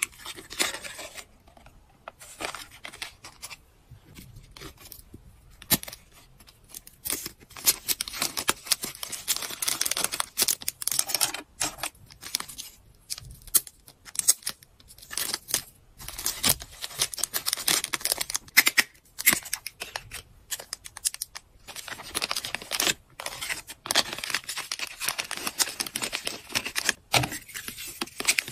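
Clear plastic packaging crinkling and rustling as small wrapped items and plastic bags are handled and packed by hand, with scattered sharp clicks and taps of small items being set down.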